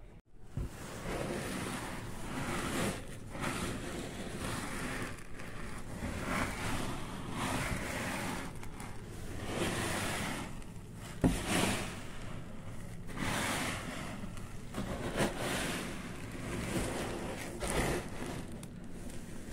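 A hand raking and stirring through a heap of small compound-feed pellets: the pellets rustle and swish in repeated surges, with one sharp click about eleven seconds in.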